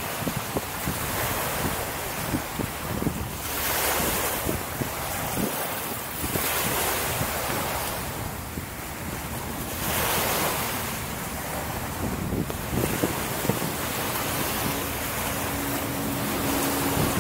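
Wind buffeting the microphone of a bike-mounted camera while cycling: a steady rush that swells and ebbs every few seconds, with low rumbling crackles. A faint steady hum comes in near the end.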